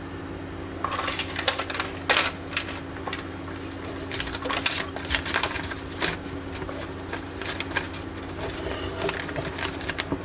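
Arctic Cooling BioniX F120 120 mm case fan running with a steady hum, far louder than the owner expects from a silent fan, which he suspects is a defect. From about a second in, irregular sharp clicks and rattles sound over the hum.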